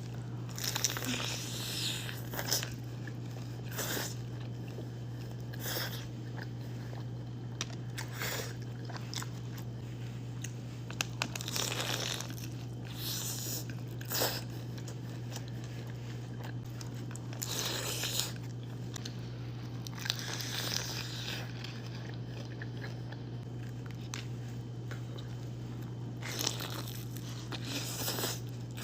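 Loud crunching bites into crispy fried birria tacos, close to the microphone, a bite every couple of seconds with chewing between them. A steady low hum sits underneath throughout.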